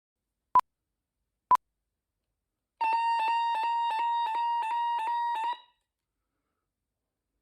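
Two short electronic beeps a second apart, then a loud pulsing electronic alarm tone for about three seconds that cuts off suddenly, like an alarm clock going off.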